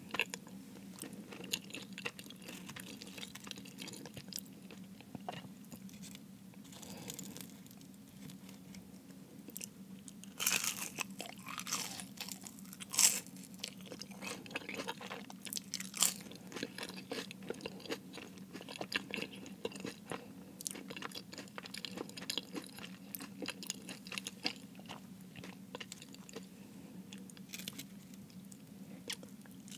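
Close-miked chewing of a Jamaican beef patty, the flaky pastry crust crackling between the teeth, with a few sharper, louder crunches about ten, thirteen and sixteen seconds in.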